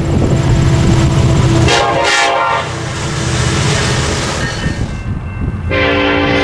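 A Nathan K5LLA five-chime air horn on an SD70ACe diesel locomotive sounding a chord over the low rumble of the passing train: one short blast about two seconds in, then a long blast starting near the end.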